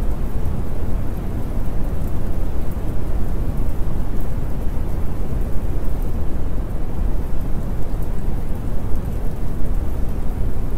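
Steady rain-and-thunder ambience: an even, deep rumbling rush of noise with faint tiny crackles on top.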